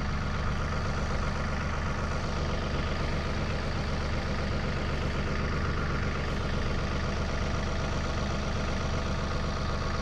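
A John Deere 3039R compact tractor's three-cylinder diesel engine running at a steady, unchanging speed.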